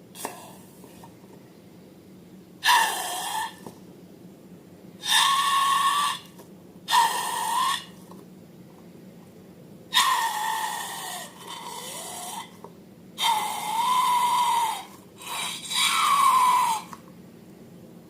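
Air squealing out of balloon necks as balloons are let down: about seven separate squeaky, hissing bursts, each between half a second and two seconds long, with a pitch that wavers.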